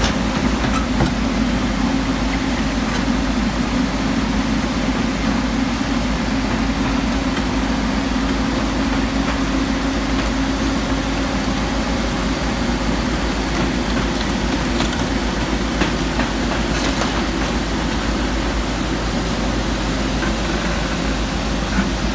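JCB 220LC tracked excavator's diesel engine running with a steady, even drone that holds the same pitch throughout.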